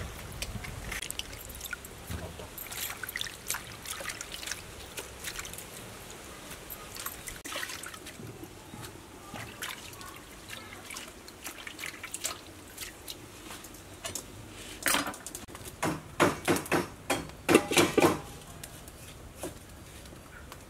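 Water sloshing, trickling and dripping as hands wash food in a steel bowl of water, with many small clicks and splashes and a run of louder knocks near the end.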